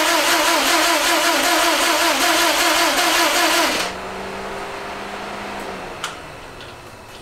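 Subaru WRX STI turbocharged flat-four being cranked on the starter motor, its pitch wavering evenly with each compression stroke, but it never catches or fires. The cranking stops abruptly about four seconds in. A fainter steady hum follows, then a single click.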